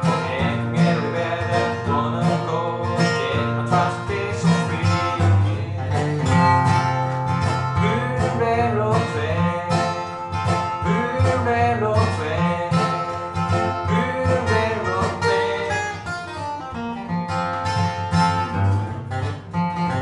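Live bluegrass played on acoustic guitar and dobro: steady guitar strumming under a dobro lead with sliding notes.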